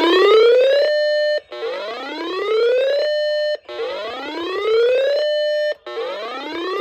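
Electronic whooping alert tone on an emergency-alert radio broadcast. Each whoop rises steadily in pitch, holds briefly at the top and cuts off, repeating about every two seconds, before the warning is read out.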